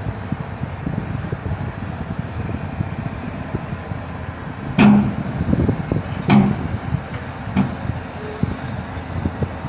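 Heavy diesel earthmoving machinery running with a steady low rumble, broken by three loud metallic bangs about a second and a half apart around the middle.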